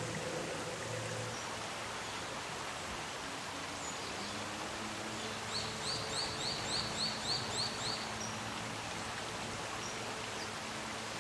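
Common kingfisher calling: a quick series of about ten short, high, rising notes, roughly four a second, lasting a couple of seconds, over steady background noise.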